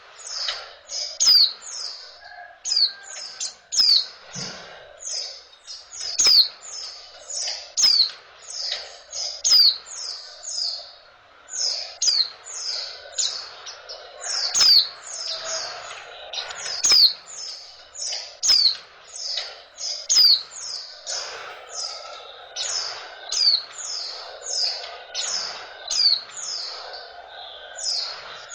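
Female white-eye (pleci) calling: runs of short, high chirps, each falling quickly in pitch, repeated several times a second with brief pauses between runs. It is a call that bird keepers play to stir male white-eyes into breeding condition.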